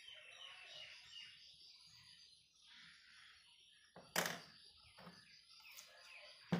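Faint bird chirping in the background, then a sharp knock about four seconds in as small parts are handled on the table, with a lighter knock near the end.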